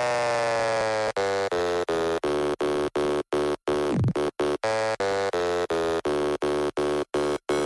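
Electronic dance music: a buzzy synth note gliding slowly down, then chopped into short even stabs about three times a second, with a quick pitch dive and rise near the middle.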